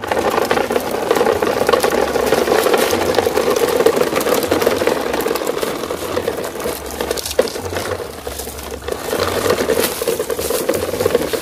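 Plastic toy dump trucks coupled in a line, their plastic wheels rolling and rattling over rough concrete as they are pulled along on a string, a continuous grinding rattle with small clicks.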